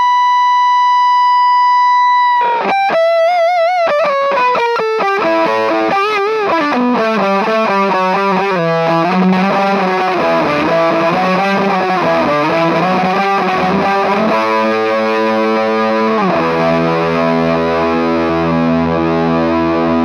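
Electric guitar played through a Sound Sounds Hybrid Fuzz Box pedal: a long sustained fuzzed high note, then a run of bent, wavering notes that slide downward, then two held fuzz chords.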